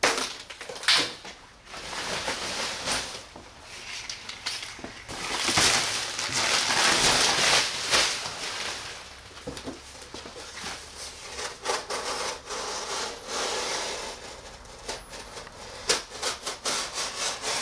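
Cardboard and plastic wrapping being cut with a sharp Spyderco folding knife and pulled away: rough scraping, rustling and tearing, loudest for a few seconds in the middle, with short scrapes and ticks around it.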